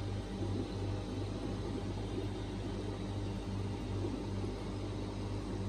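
Aquarium pump running: a steady low hum over an even hiss.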